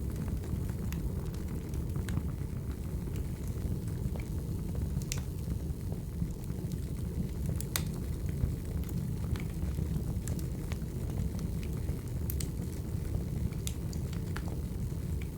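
Wood fire burning: a steady low rumble of flames with frequent sharp, irregular crackles and pops.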